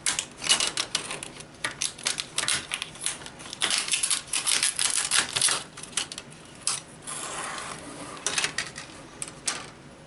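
Plastic screen bezel of a Lenovo N22 Chromebook being pried off with a metal pry tool: a run of irregular clicks and snaps as its clips let go, with a short rasping stretch about seven seconds in.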